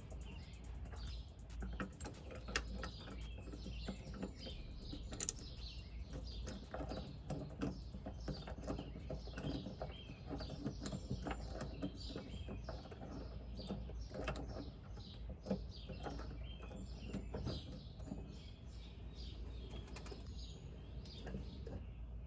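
Small birds chirping over and over in the background, with a few sharp metallic clicks and clinks from lug nuts and tools being handled.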